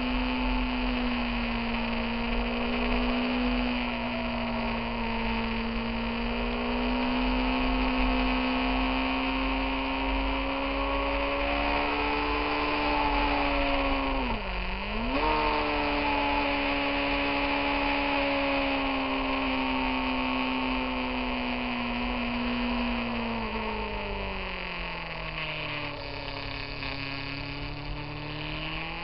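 Motorcycle engine running at high revs on the move, with steady wind rush. Near the middle the revs drop sharply and pick straight back up. Over the last few seconds they fall steadily as the bike slows.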